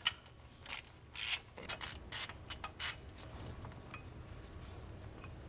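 Socket ratchet wrench worked back and forth on a bracket bolt on a small-block Chevrolet cylinder head: several short rasping runs of pawl clicks in the first three seconds, then only faint handling noise.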